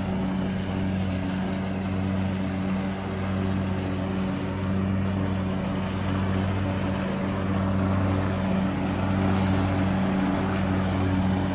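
John Deere LX172 riding lawn mower's single-cylinder Kawasaki engine running steadily at mowing speed while it cuts grass, a constant drone with an even whirring hiss from the mower deck.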